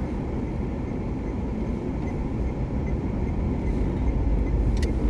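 Steady in-cabin drive noise of a Renault Duster moving on a snowy road: a low rumble of engine and tyres, with a single click near the end.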